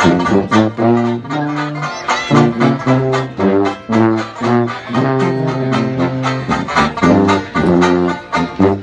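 Traditional jazz street band playing, two sousaphones on an oompah bass line under trombone and a strummed banjo, at a steady beat.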